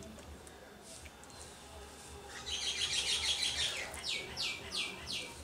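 A small bird chirping: a quick run of high chirps past the middle, then four short calls that each fall in pitch.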